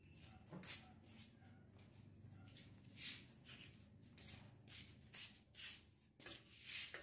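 Faint rubbing or brushing strokes, about two to three a second, over a low steady hum.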